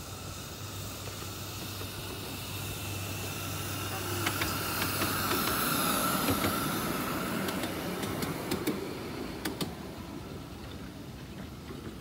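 A miniature ride-on railway train passing by. It grows louder to a peak about halfway through and then fades, with a run of sharp clicks as it goes past.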